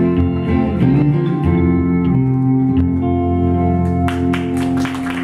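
Guitar playing the closing notes of a country song and letting the final chord ring, with applause breaking out about four seconds in.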